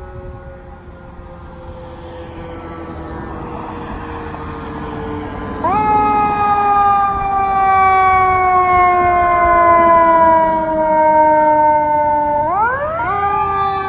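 Emergency sirens of a Los Angeles County Fire Department squad truck and a McCormick ambulance running together, growing louder as they approach and pass. The siren pitch falls slowly over several seconds, and a louder, higher siren cuts in about halfway. Near the end the pitch sweeps sharply back up.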